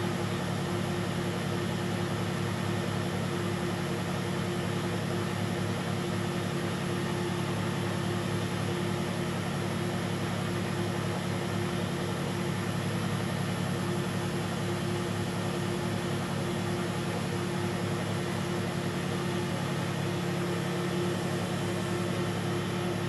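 1972 Weiler Matador SV metal lathe running with the chuck spinning, a steady motor and gearbox hum.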